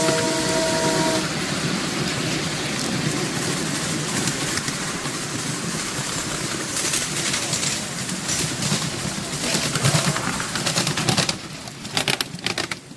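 Miniature railway passenger train running along its track, heard from aboard a carriage: a steady clatter and rattle of wheels on rail. A whistle sounds at the start and stops about a second in, and a run of sharp clicks comes near the end.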